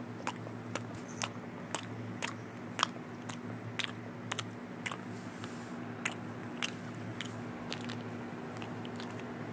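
Eating sounds: a string of sharp, crunchy chewing clicks, irregular at about two a second, over a steady low hum.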